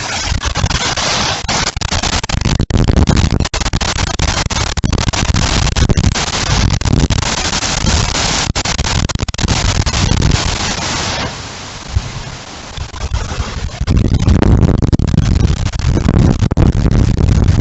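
Windstorm with driving rain: strong wind gusts buffet the microphone with a heavy low rumble over a dense rain hiss. The hiss drops away suddenly about eleven seconds in, and the gusts build again a few seconds later.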